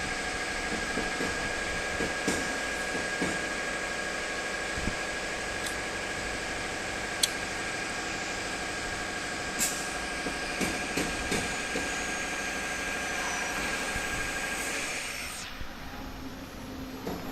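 ATC CNC router AKM8020C running, its spindle giving a steady high whine over a hiss, with a few sharp clicks. The whine stops about fifteen seconds in, the sound drops, and a run of knocks starts at the very end.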